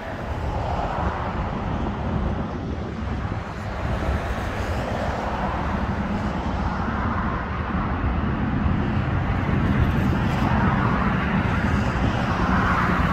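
Steady road traffic noise: a low rumble with vehicles passing, each swelling and fading over a few seconds, growing louder toward the end.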